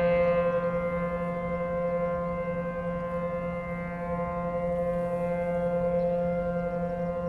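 ACA P-10 outdoor warning siren sounding its steady alert tone, one held pitch with many overtones. The level falls slowly and rises again about halfway through.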